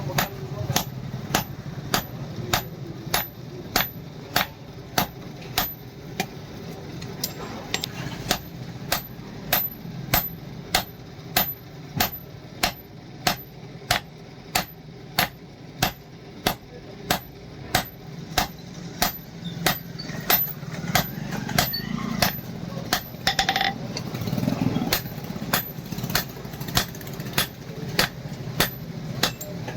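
Steady hammering on hot leaf-spring steel at an anvil, about two blows a second, each blow ringing briefly, over a steady low hum.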